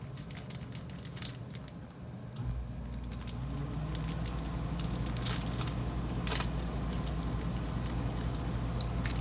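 Trading cards being handled and slid into a plastic card sleeve: light scattered clicks and rustles of card and plastic. About two and a half seconds in, a low steady rumble starts and carries on.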